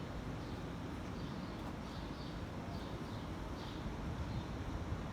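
Outdoor ambience: a bird chirping repeatedly, short high chirps about half a second to a second apart, over a low steady rumble.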